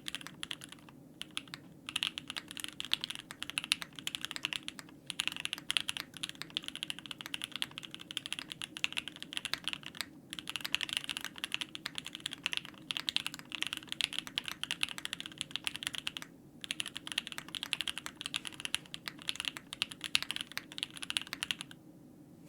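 Steady fast typing on a Monokei Kei custom mechanical keyboard with lubed and filmed JWK Moss linear switches on an aluminium plate and ePBT keycaps, with a few short pauses; the typing stops shortly before the end.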